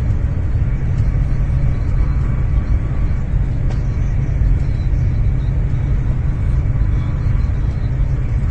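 High-speed train running at speed, heard from inside the passenger cabin: a steady, deep rumble with a lighter hiss above it.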